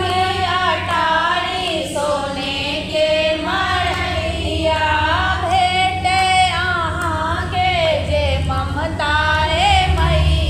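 A group of women singing a folk song together in unison, one continuous melody rising and falling with no break.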